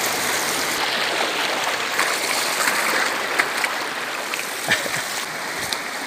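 Small mountain waterfall pouring into a rocky pool: a steady rush of water.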